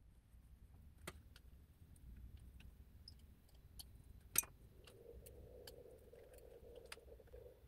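Faint, scattered clicks and taps of a plastic cover being fitted over an e-bike's mid-drive motor, with one sharper click about four and a half seconds in.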